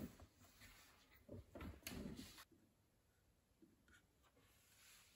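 Near silence: room tone with faint rustling and soft knocks about a second and a half in, then a couple of faint clicks.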